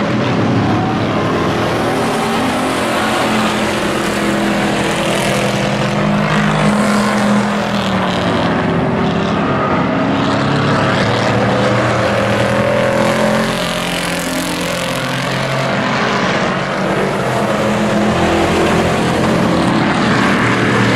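Engines of several stock pickup race trucks running hard around an oval track. The pitch rises and falls as the trucks lap and pass.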